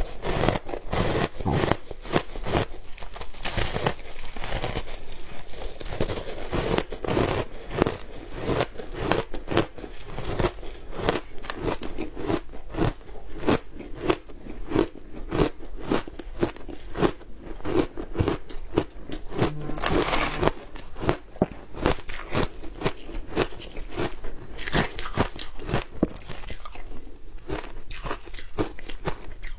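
Close-up crunching of frozen shaved ice coated in matcha and milk powder being bitten and chewed: a quick, continuous run of crisp bites and crackles, several a second.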